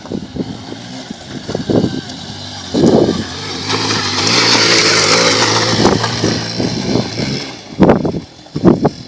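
Honda NXR 150 Bros single-cylinder four-stroke motorcycle engine running under throttle on a dirt trail, growing louder from about three seconds in and fading again near the end. Irregular sharp thumps come before and after it.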